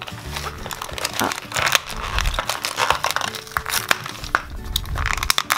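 Plastic blister packaging and cardboard crinkling and crackling in irregular bursts as a small toy car is handled and pulled out of its box.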